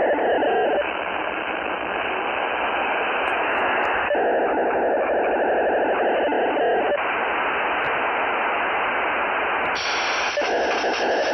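FM-demodulated POCSAG pager data bursts from a shortwave SDR receiver on 27.550 MHz: a harsh rasping data buzz over radio hiss, changing character every few seconds as bursts come and go. About ten seconds in the audio turns brighter and wider.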